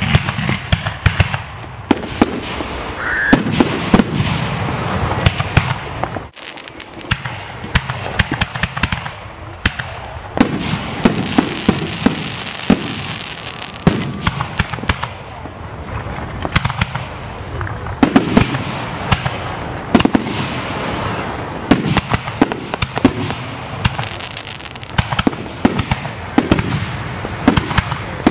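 Fireworks display: aerial shells bursting in quick succession, with a dense run of sharp bangs and rapid pops. There is a brief lull about six seconds in.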